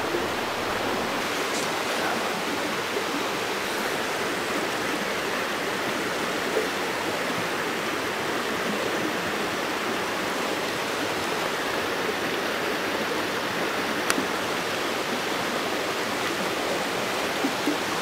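Mountain stream running: a steady, even rush of flowing water, with a couple of faint ticks.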